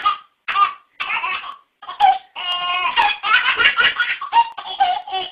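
A baby laughing in a string of short bursts with brief breaks between them, then a longer run of giggling laughter.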